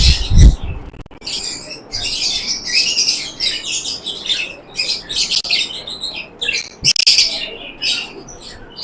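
A group of small pet birds chirping and squawking together in a rapid, continuous high-pitched chatter.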